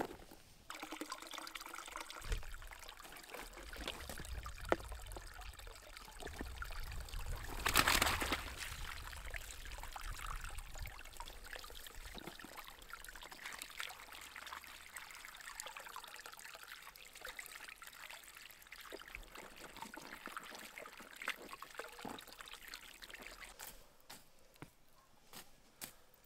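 Water pouring and trickling, with a louder surge about eight seconds in.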